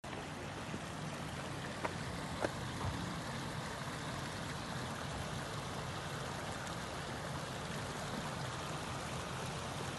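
Steady rush of flowing water, like a stream, with two small sharp knocks about two seconds in.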